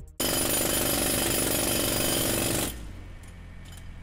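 Jackhammer pounding in a rapid steady rattle that starts abruptly and stops after about two and a half seconds, followed by a few faint clicks.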